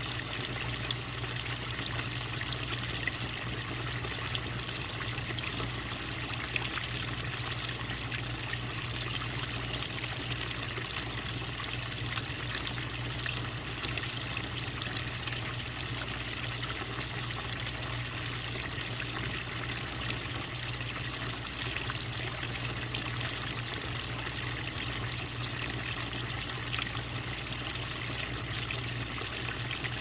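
Small garden pond waterfall: water trickling and pouring steadily over stacked stones into the pond.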